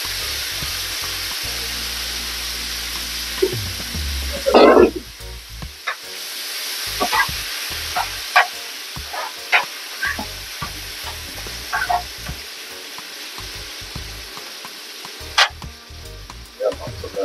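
Chicken strips in marinade sizzling in a hot nonstick frying pan while being stirred, with the utensil clinking and scraping against the pan. A loud clatter comes about four and a half seconds in, the sizzle dips briefly after it and then picks up again, with scattered sharp clicks from the stirring.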